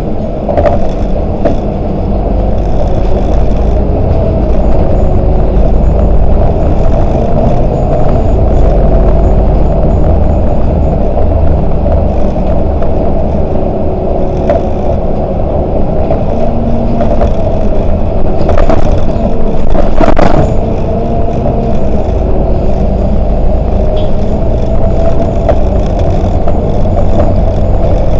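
Volvo 8900LE city bus driving, with a steady engine and road rumble. A few sharp rattles of the body and fittings come about two-thirds of the way in.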